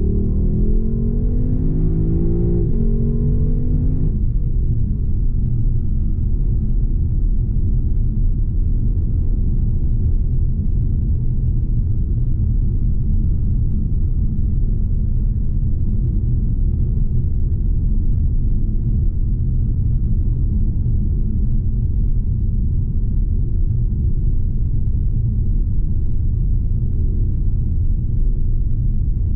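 Lexus LC 500's 5.0-litre V8 accelerating with its pitch rising, an upshift about two and a half seconds in, then climbing again until about four seconds in, when it settles into a steady low rumble at cruising speed with road and wind noise.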